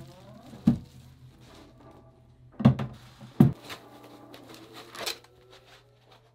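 Foam packing being lifted off and handled around a newly unboxed resin 3D printer: rubbing handling noise broken by several sharp knocks, the loudest two coming close together about three seconds in.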